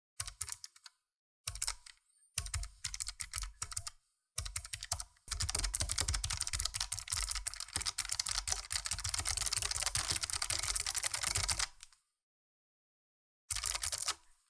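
Keychron K1 version 2 low-profile mechanical keyboard with blue switches being typed on. Short bursts of key clicks come first, then about six seconds of fast continuous typing starting about five seconds in, then a pause, and one more short burst near the end.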